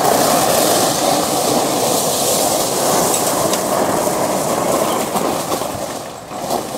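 EZGO TXT 48-volt electric golf cart with an upgraded 440-amp controller taking off hard: a sudden loud rushing noise with no engine note, holding for about five seconds and then fading.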